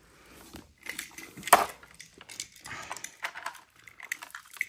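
Plastic toys being handled, with scattered clicks and rattles and one sharp click about a second and a half in.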